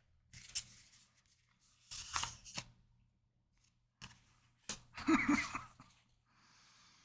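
Tarot cards being shuffled and handled: several short bursts of rustling and snapping card stock.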